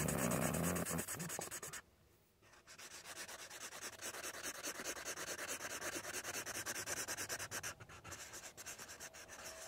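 Felt tip of a Sharpie marker scribbling rapidly on paper: a dense run of quick scratchy rubbing strokes, which drops out briefly about two seconds in.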